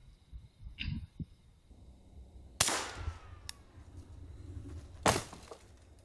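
Two gunshots about two and a half seconds apart, each with a short ringing tail, and a fainter sharp crack about a second in.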